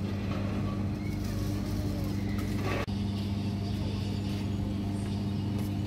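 Steady low machine hum with faint clicks over it, briefly dropping out just before three seconds in.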